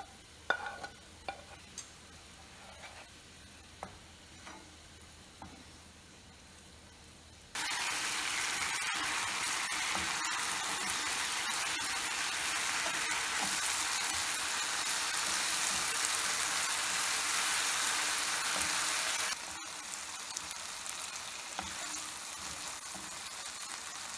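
A wooden spatula knocks and scrapes a few times as fried okra is pushed into a pan of yogurt gravy. About seven seconds in, loud sizzling starts abruptly as the okra cooks in the spicy yogurt gravy on high heat, stirred with the spatula, and it drops to a quieter sizzle about 19 seconds in.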